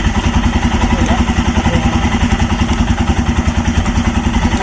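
Royal Enfield Himalayan's 411 cc single-cylinder engine running at a steady idle with an even pulsing beat.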